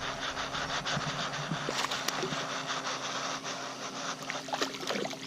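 Spinning reel being cranked to bring in a hooked fish, a fast run of small clicks, with some splashing of water from the fish near the surface.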